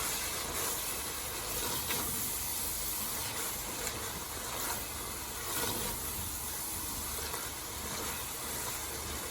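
Onions and spice powders sizzling steadily in hot oil in a pan, with a few faint knocks of the spoon as they are stirred.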